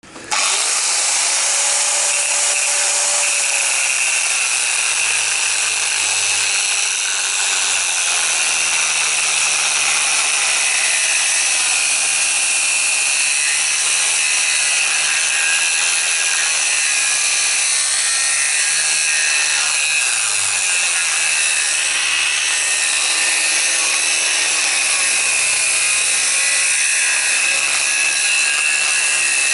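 Angle grinder cutting down steel in one long continuous cut: a loud, steady, hissing grind with a high whine over it, cutting in abruptly at the start.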